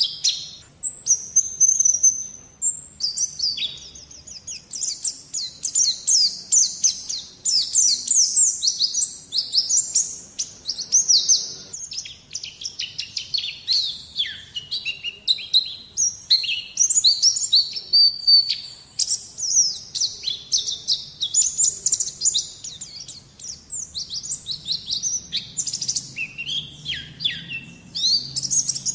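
White-eye (pleci) song, as used in a masteran training track: a rapid, nearly continuous stream of high chirps and twittering trills, broken only by brief pauses.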